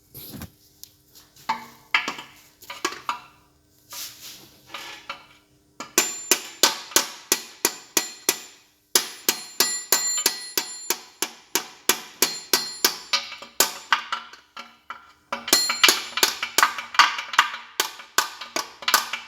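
Hammer tapping on a Massey Ferguson 135 gearbox mainshaft to drive it back into the case: quick runs of ringing metal-on-metal strikes, about three a second, broken by short pauses.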